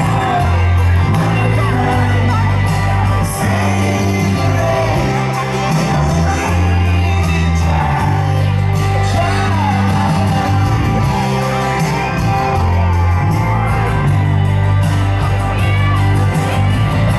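Live pop-band performance: a male lead vocal sung into a microphone over loud amplified backing with a strong bass line that steps between notes. Fans shout and scream along.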